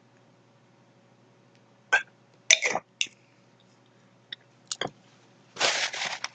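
Eating sounds: a few short, scattered mouth clicks and smacks, then a brief breathy, noisy rustle shortly before the end.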